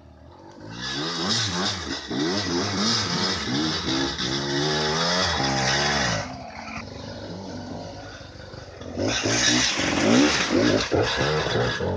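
Enduro motorcycle engine revving hard and unevenly as the bike claws up a steep muddy rut, the revs rising and falling. It eases off for a few seconds past the middle, then revs loudly again.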